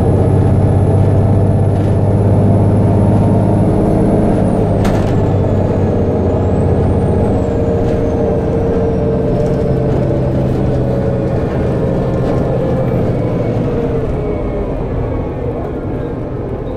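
Volvo B7TL double-decker bus heard from inside the saloon while it drives: a steady engine and drivetrain hum under road noise, with a high thin whine that drops in pitch and wavers about four seconds in. A single sharp knock comes about five seconds in.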